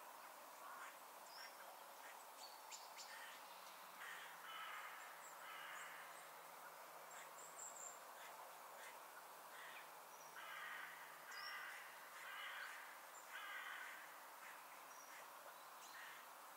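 Faint harsh cawing of a crow-family bird in two runs: two caws about four seconds in, then four or five more from about ten seconds, with thin high chirps of small birds between.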